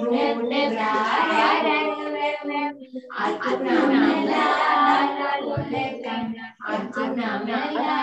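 Young children singing a Sinhala children's rhyme (kavi) together in phrases, with short breaths between lines.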